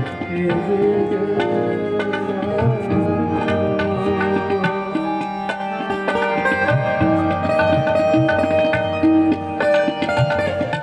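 Live ghazal accompaniment: tabla playing a steady rhythm under a held keyboard melody and plucked string notes.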